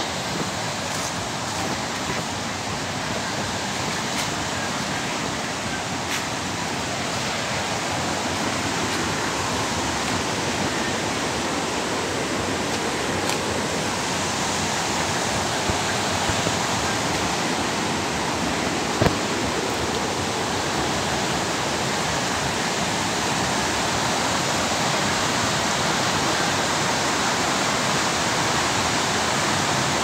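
River rapids and small cascades rushing over rock ledges: a steady, even rush of water. There is one brief sharp click about two-thirds of the way through.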